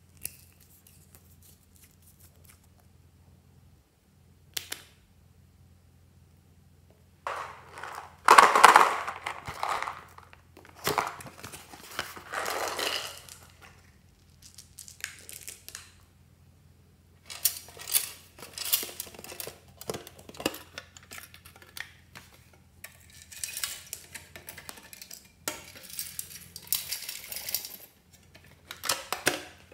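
Small plastic beads, sequins and trinkets poured and dropped into glass dishes of glue, clattering and rustling in irregular bursts, loudest about a third of the way in, with stretches of near quiet at the start.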